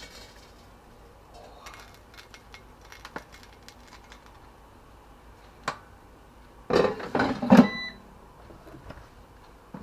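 Light clicks and clinks of handling, then about two thirds of the way through a second of loud clattering with a brief metallic ring as the air fryer's basket is lifted and moved.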